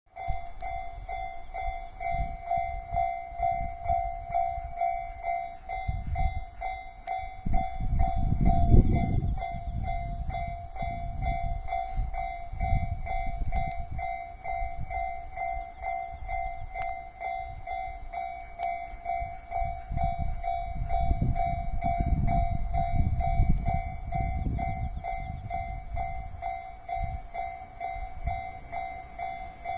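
A railway level-crossing warning bell rings steadily as a train passes over the crossing. Under the bell, the train's wheels rumble and clatter over the rail joints, loudest about eight seconds in and again around twenty-two seconds.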